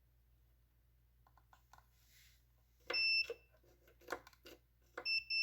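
Multimeter continuity beeper sounding as the test probes touch the motor leads: a short high steady beep about three seconds in, then a longer one starting near the end, with clicks and knocks of the probes being placed. The beep shows the wire has continuity, so the lead is not broken or missing.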